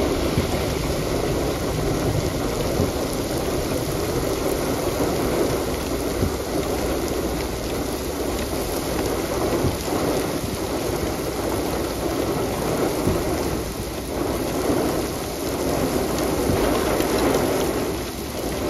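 Heavy thunderstorm rain pouring steadily, a dense patter with many sharp drop hits.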